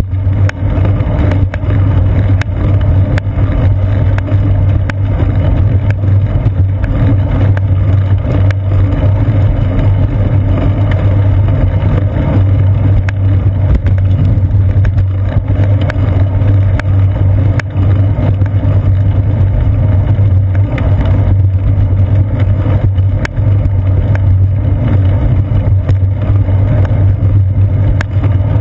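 Bicycle riding on a concrete path, heard through a GoPro mounted on the seat post: a loud, steady low drone of road rumble and vibration, with frequent small knocks and rattles.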